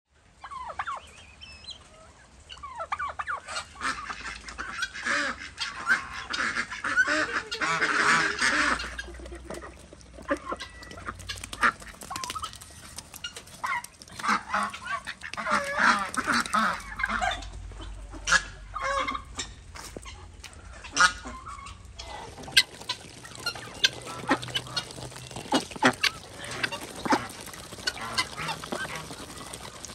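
Domestic geese honking and ducks quacking in loud bouts of calls. In the last several seconds, many short sharp clicks as ducks peck at scattered grain.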